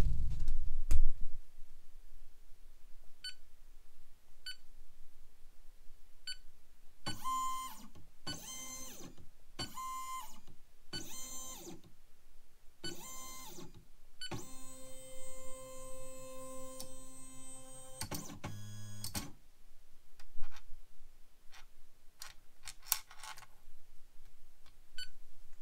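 Electronic tones from a laser engraver's touchscreen control panel as it is operated: a few faint short beeps, then a run of five short notes and a longer held chord, followed by scattered clicks.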